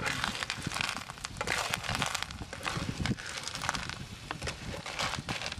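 Small shellfish in their shells sizzling in a frying pan while a spatula stirs them, with many quick clicks and rattles of shell against shell and against the pan.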